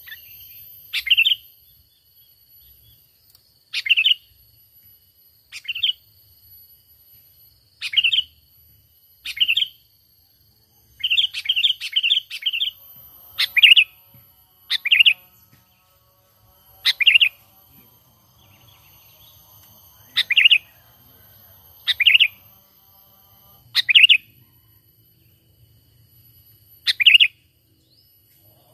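Sooty-headed bulbul (kutilang) calling: short bright chirping calls repeated about every two seconds, with a quick run of four calls about eleven seconds in.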